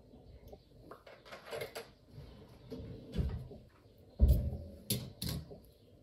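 Handling noises: scattered knocks and rustles, the loudest a heavy thump about four seconds in, followed by two sharp clicks, as things are moved and set down.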